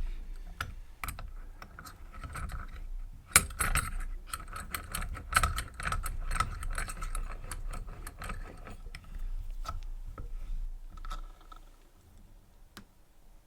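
Keys and a Yuema 750 padlock being handled: a run of small metallic clicks and jingles, busiest and loudest between about three and nine seconds in, thinning out near the end.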